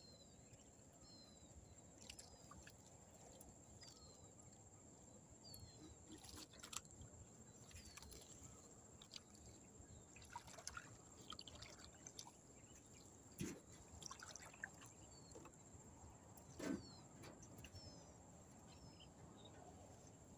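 Near silence with faint water drips and small trickles, and two soft knocks in the second half. Faint short falling high chirps repeat about once a second over a steady thin high whine.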